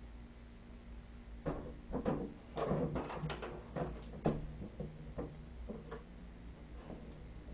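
A dog forcing its way through a small pet door: the flap and its frame knock and clatter over and over as the dog pushes through. The knocking starts about a second and a half in, is busiest for the next few seconds, then thins out.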